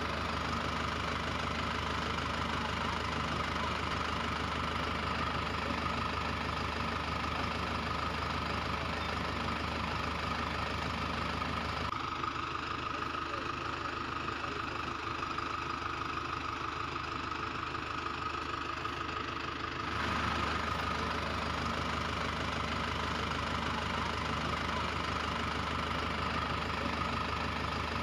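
Steady sound of a tractor engine idling, with a change in its sound between about 12 and 20 seconds in.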